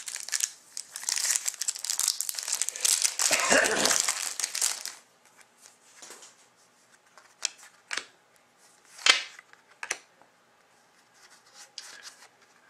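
Foil wrapper of a Panini Select hockey card pack crinkling and tearing as it is opened, dense for about five seconds, then scattered soft clicks and rustles of cards being handled.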